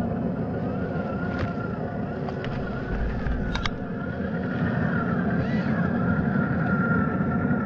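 Traxxas TRX-4 RC crawler's electric motor and geared drivetrain whining while it crawls, the whine wavering up and down in pitch over a steady low rumble. A few sharp clicks come through, about a second and a half in and twice around three and a half seconds.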